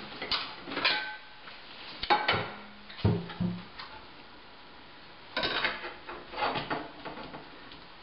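Dishes clattering: plates set down and shifted on a kitchen counter, with about half a dozen separate knocks and clinks at irregular intervals, a few of them ringing briefly.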